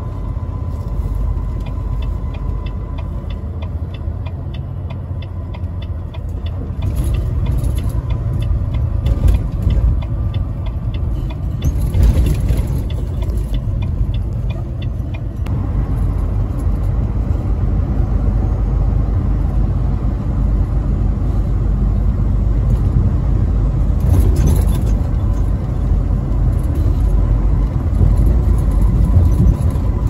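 Steady low rumble of a truck's engine and tyres, heard from inside the cab at highway speed. A regular light ticking runs through the first half.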